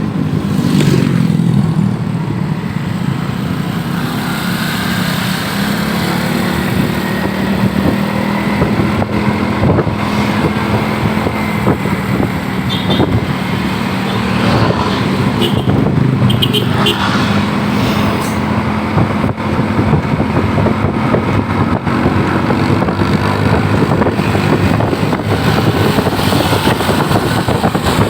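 Road traffic: motor vehicles and motorcycles running steadily, with a constant low engine hum.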